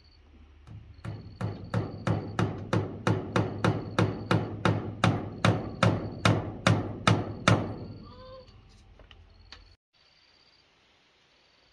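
A hammer striking steadily, about eighteen even blows at nearly three a second, each with a short ringing tail, then stopping. Faint high chirping of insects underneath.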